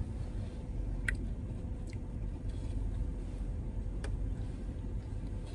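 Steady low rumble inside a car's cabin, with a few short clicks of eating, including a bite into a tater tot about four seconds in.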